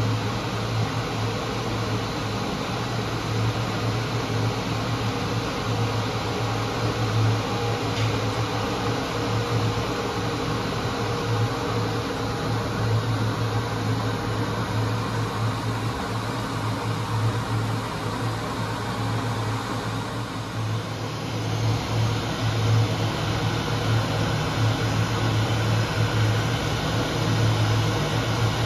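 Steady mechanical hum and air noise of workshop ventilation, with a strong low drone; the noise changes character about two-thirds of the way through.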